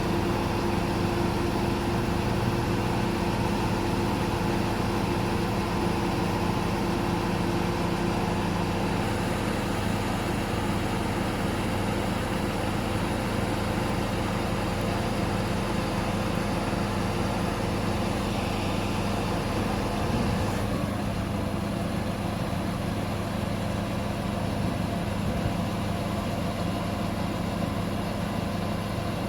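Diesel engine of an XCMG QY25K5A truck crane running steadily, its tone shifting slightly about twenty seconds in.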